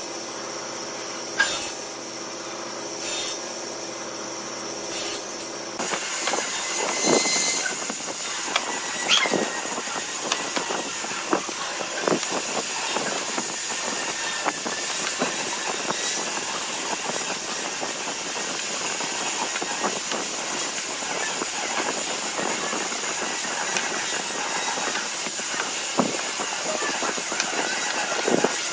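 Table saw running steadily as a strip of wood is fed past the blade; the saw sound stops abruptly about six seconds in. After that, wooden blocks clack and tap irregularly as they are set down and pushed together on a wooden bench, over a steady hiss.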